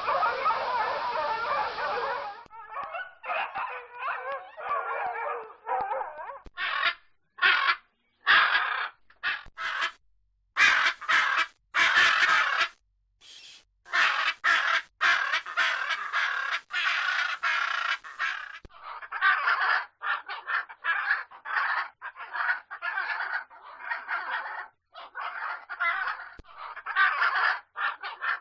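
Macaw squawks: a series of short, harsh calls in runs with gaps between them. For the first couple of seconds, bloodhounds yelping cuts off before the macaw calls begin.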